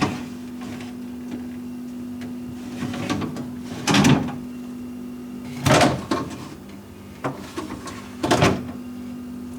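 Plastic storage bins in a side-by-side fridge being slid out and pushed back in: three short clatters about two seconds apart, over a steady low hum.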